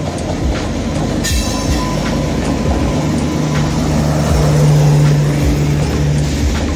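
WAP-7 electric locomotive and its LHB coaches rolling past, wheels clicking over rail joints above a steady rumble. A low steady hum swells through the middle as the coach train's generator car goes by.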